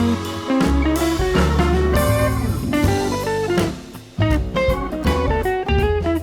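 Background music: guitar over a drum kit, with a brief drop in loudness about two-thirds of the way through.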